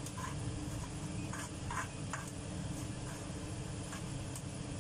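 A metal spoon scraping ketchup out of a small bowl, a few light scrapes in the first half, over a steady low hum.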